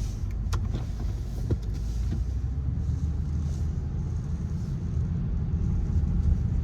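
Car cabin noise while driving: a steady low engine and road rumble, with a few faint clicks in the first couple of seconds.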